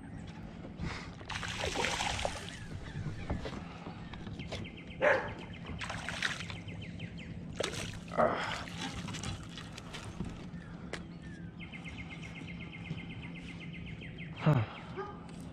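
A hooked fish splashing and thrashing at the water's surface beside a kayak, several separate splashes, the loudest about five, eight and fourteen seconds in, with stretches of fine rapid ticking in between.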